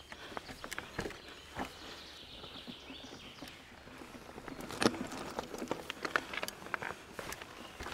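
Mountain bike ridden slowly over a dirt trail through tight switchbacks: tyres crunching over soil and roots, with uneven clicks and knocks from the bike. The loudest knock comes about five seconds in.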